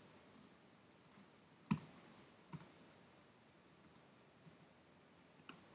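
Near silence with a few separate clicks of computer keyboard keys, the loudest about a second and a half in.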